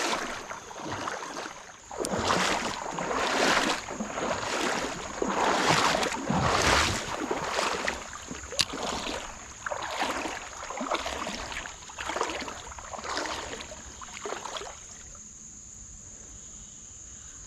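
Water sloshing and splashing in swells about once a second, stopping a few seconds before the end, over a steady high-pitched insect drone.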